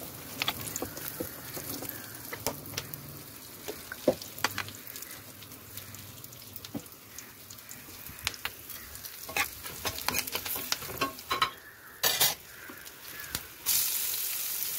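Green chillies, chopped garlic and curry leaves frying in hot coconut oil in a pan, with scattered crackles and pops. Near the end sliced onions go in and the sizzle suddenly becomes a louder, steady hiss.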